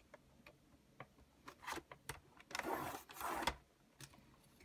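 Paper trimmer's scoring blade drawn along its track, pressing a score line into cardstock: a scraping slide lasting about a second, a little past halfway, after a few light clicks and taps as the card is set in place.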